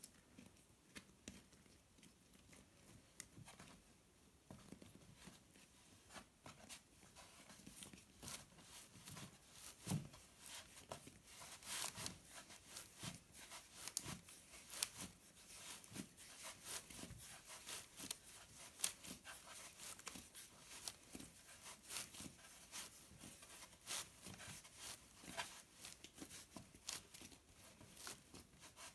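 Faint handling noises of hands working bread dough on a floured wooden board: a scatter of light clicks, rustles and soft pats, busier in the second half.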